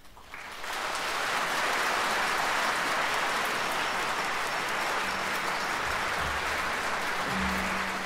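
Audience applause that breaks out about half a second in, right after the final sung note dies away, and continues steadily.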